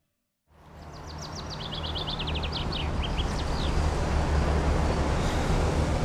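City street ambience fading in after a moment of silence: a steady low traffic rumble, with a bird singing a quick run of high chirps that step down in pitch about one to three seconds in.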